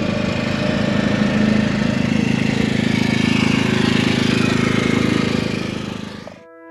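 Small portable generator's engine running steadily under load, a constant fast-pulsed drone. It fades out near the end.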